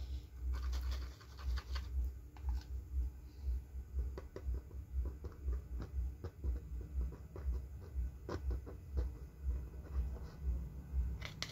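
Small scratches and light clicks of a thin tool dabbing and spreading mixed Araldite epoxy over the soldered lead-wire joints on a speaker cone, over an irregular low rumble.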